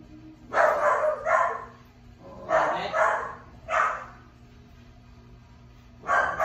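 A dog barking: a run of short, loud barks in pairs over the first four seconds, then a pause of about two seconds before one more bark near the end.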